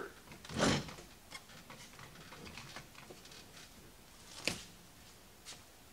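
Small handling noises: a brief rustle about half a second in, then scattered light clicks and taps, with one sharper click near the end.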